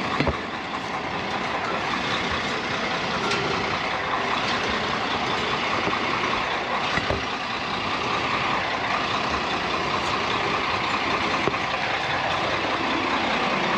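Steady vehicle running noise: a truck's engine and road noise while driving along.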